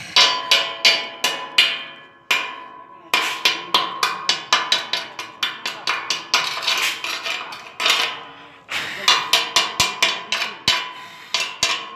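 Chipping hammer knocking slag off a fresh E-6013 stick weld bead on steel square tube: quick runs of sharp metal strikes, about four a second, each leaving the tube ringing. There are two short pauses, about two seconds in and about eight seconds in.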